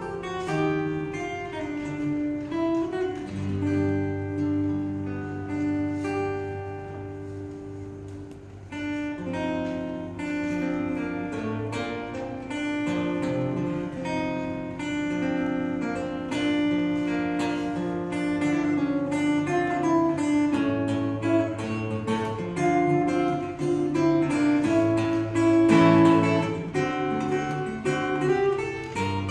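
Solo acoustic guitar played fingerstyle: a plucked melody over a running bass line, growing softer about eight seconds in and loudest near the end.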